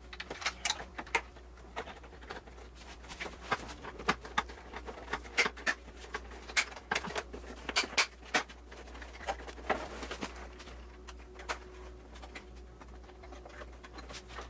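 Plastic clicks, taps and knocks of an aftermarket TRD Pro-style grille being pushed into a truck's plastic front bumper cover, its clips snapping into place. The clicks come irregularly, thickest in the middle, and thin out near the end.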